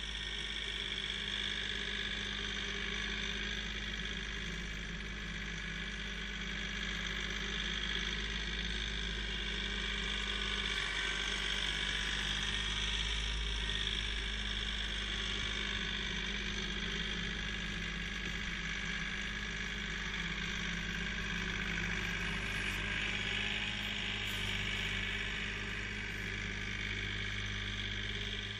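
Kioti CK3510 compact tractor's three-cylinder diesel engine running steadily as the tractor works its front loader and snow pusher.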